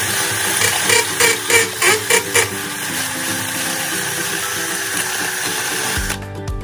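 Bosch GSB 180-LI 18V cordless drill boring into a cement wall with a 10 mm masonry bit. It runs steadily, with a run of sharp surges between about one and two and a half seconds in, and stops shortly before the end.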